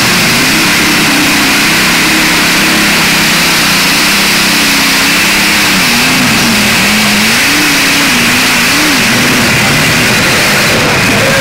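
Modified pulling tractor's engine running loud and hard under load on the pull, its pitch wavering up and down as the revs rise and sag.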